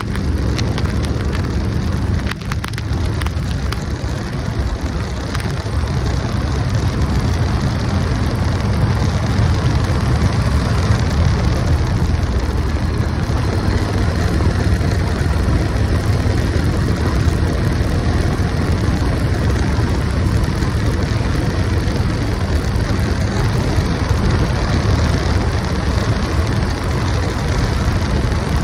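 Motorcycle running at road speed, its engine noise mixed with steady wind rush on the microphone.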